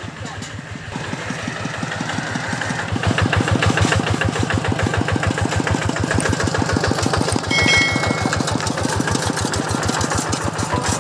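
Diesel engine of a small farm cargo cart running with a rapid, steady chugging, growing louder over the first three seconds as the cart comes close and then holding as it rolls over. A brief high-pitched tone sounds about three quarters of the way through.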